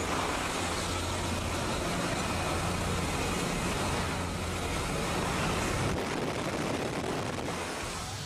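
Jump plane's engine running with a steady low drone under loud wind noise rushing in through the open door at altitude.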